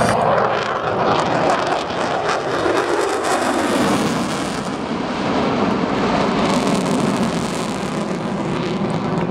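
F-22 Raptor's twin Pratt & Whitney F119 turbofan engines roaring in afterburner as the jet banks and pulls up, with a tone sweeping down in pitch over the first four seconds as it passes.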